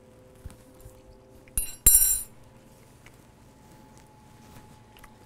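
A metal fork clinks twice against a hard surface as it is put down, the second strike louder and ringing briefly.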